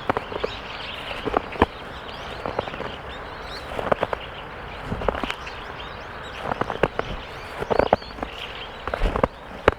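Footsteps crunching and squeaking in snow, in uneven clusters about once a second, over a steady outdoor hiss.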